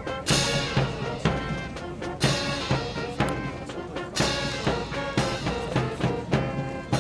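Brass band music with drums, a strong accented beat about once a second.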